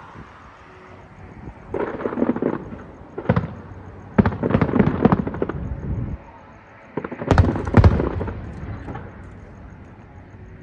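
Aerial fireworks bursting in several volleys: a crackling burst about two seconds in, a single bang, a dense run of crackling bangs from about four to six seconds, then two heavy bangs near eight seconds with crackle fading after them.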